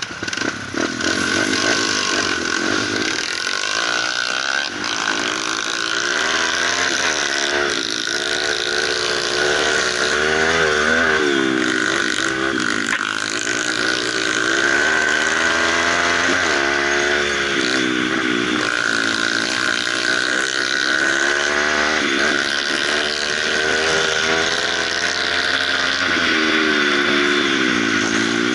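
Dirt bike engine heard on board while riding, its pitch rising and falling again and again as the rider opens and eases off the throttle through the gears, over a steady rushing hiss.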